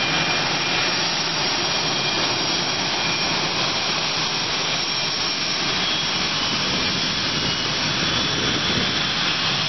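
CF-18 Hornet fighters' twin General Electric F404 turbofans taxiing past: steady jet engine noise with a high whine.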